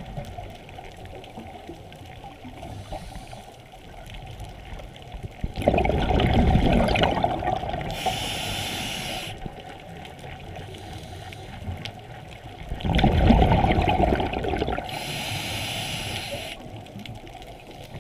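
Scuba diver breathing through a regulator, heard underwater. There are two long rushes of exhaled bubbles about seven seconds apart, and short hisses of the regulator come between them as breaths are drawn in.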